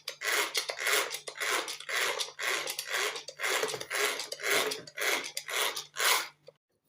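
A utensil stirring a thick conditioner mixture in a bowl, scraping in regular strokes about twice a second, then stopping suddenly near the end. A faint steady hum runs underneath.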